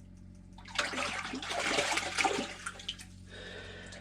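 A hooked fish splashing and thrashing in the water of an ice-fishing hole as it is brought up, a burst of about two seconds starting about a second in.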